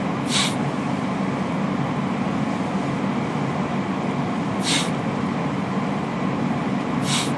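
Steady low hum and background noise, broken three times by a short, soft hiss.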